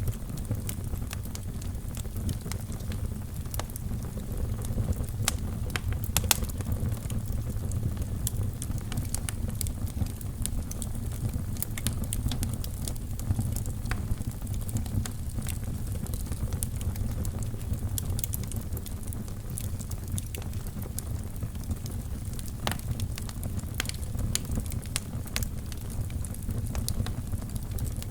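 Wood fire burning in a fireplace: a steady low rumble of the flames with frequent sharp crackles and pops scattered throughout.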